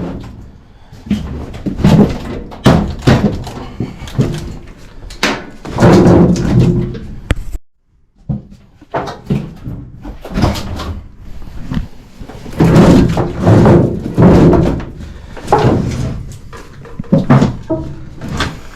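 Repeated irregular thumps and bangs of an old air handler's sheet-metal cabinet being worked loose and pulled out of its closet during removal.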